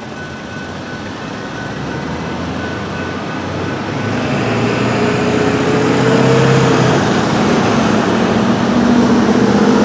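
Road traffic moving again over a railroad crossing: cars and pickups drive across the tracks, their engine and tyre noise growing louder from about four seconds in. A faint tone from the crossing's GS Type 3 E electronic bell dies away in the first few seconds as the gates rise.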